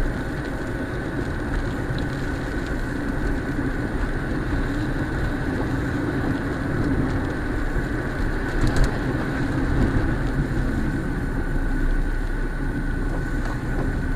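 Steady road noise of a car driving on a wet road, heard from inside the cabin: a low engine and drivetrain rumble under the hiss of tyres on water.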